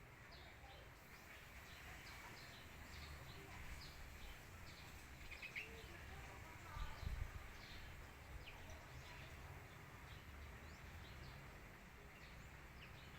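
Faint short bird chirps, many of them scattered throughout, over a steady low outdoor background, with a brief low rumble about seven seconds in.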